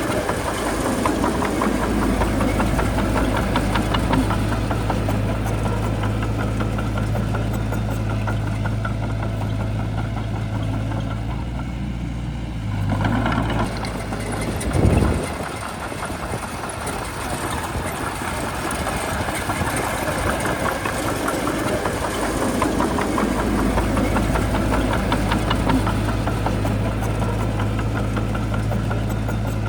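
Shantui bulldozer's diesel engine running steadily, its note changing about halfway through, with one short loud thump about 15 seconds in.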